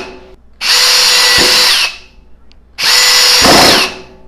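36-volt Metabo HPT hammer drill driving two long screws into lumber on clutch setting 3: two runs of about a second each, the motor pitch falling away as each run stops.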